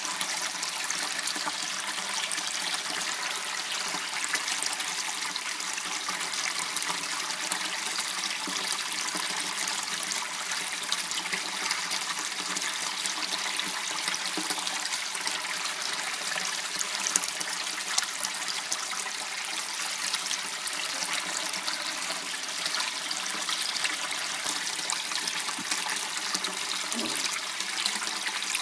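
Water trickling and running steadily in a small waterway.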